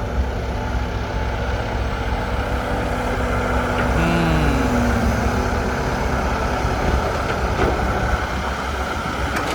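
Hydraulic excavator's diesel engine running steadily under heavy load as the machine digs and loads. A short tone drops in pitch about four seconds in.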